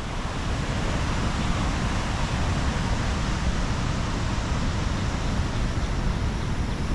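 Steady roar of a large waterfall in rainy-season flow, mixed with wind buffeting the microphone.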